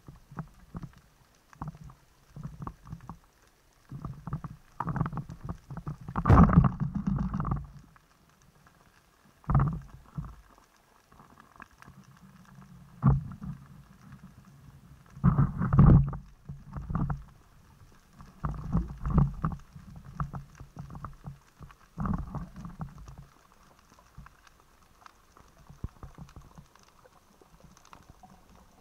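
Underwater sound of a freediving spearfisher moving in the water, heard through the camera housing: irregular bursts of muffled low rumbling and knocking. There is a sharp crack about six seconds in, the loudest moment.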